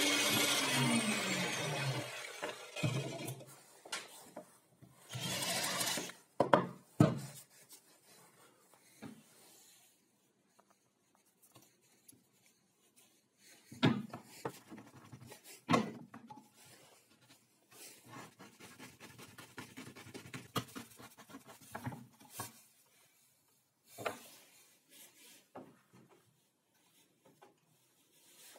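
An angle grinder fitted with a sanding disc winds down, its pitch falling over the first two seconds. After that come scattered short sounds of wooden parts being rubbed, sanded by hand and knocked together, with a few sharp knocks.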